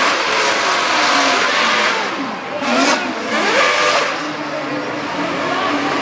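A field of Formula 1 cars accelerating away from the race start. Their 2.4-litre V8 engines are revving up through the gears, with several engine notes climbing in pitch and dropping back at each gear change as the cars pass.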